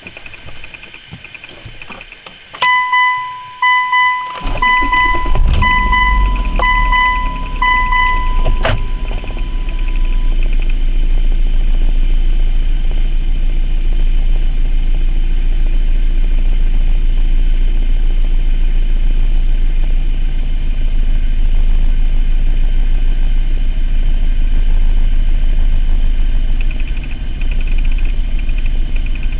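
2003 Mitsubishi Eclipse GT's 3.0 V6 cranked and started a few seconds in, then idling steadily with slight swings. The idle hunts because of a random misfire (code P0300) that the owner is still trying to trace. A dashboard warning chime beeps about once a second over the start and stops after several seconds.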